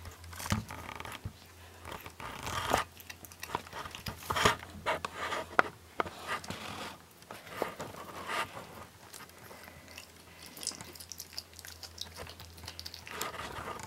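Raccoon biting and crunching on a chicken leg: irregular crunches and gnawing cracks, some louder than others, as it chews meat and bone.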